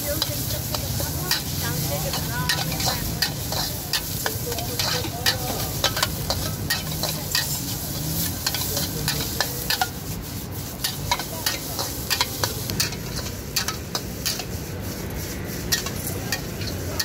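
Pad thai stir-frying in a wok: a metal spatula scrapes and clanks against the wok again and again over a steady sizzle of frying noodles.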